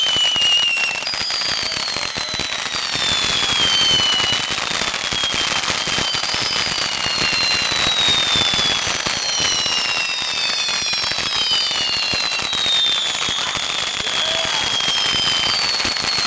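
Fireworks going off continuously: dense crackling, with many overlapping whistles that each fall slowly in pitch over a few seconds.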